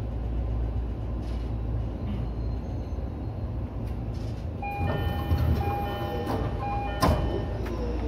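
Low steady hum of a stopped E231 commuter train, then about halfway through a chime of a few steady tones as the doors close, ending in a thud as the doors shut.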